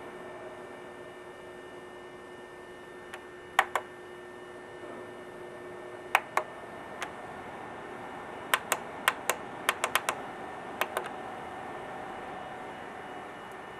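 Sharp clicks and taps: a pair, another pair, then a quick run of about ten. Behind them is a steady hum whose tone stops suddenly, together with a click, about six seconds in.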